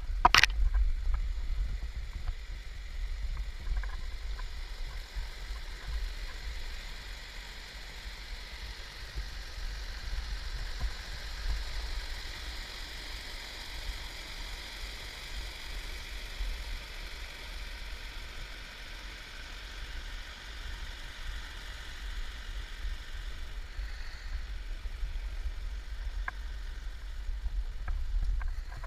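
Creek water rushing over rapids, a steady hiss that is fullest in the middle, under a constant low rumble on the camera microphone. A sharp click comes just after the start.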